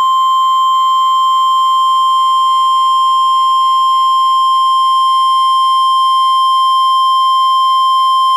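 Emergency Alert System attention signal: a loud, steady single-pitch tone, the 1050 Hz NOAA Weather Radio warning alarm that announces a tornado warning.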